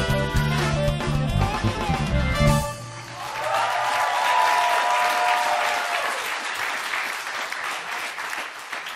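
Upbeat, jazzy band music with a bass line that stops about two and a half seconds in, followed by studio audience applause; a held final chord rings over the clapping for a few seconds before the applause slowly dies down.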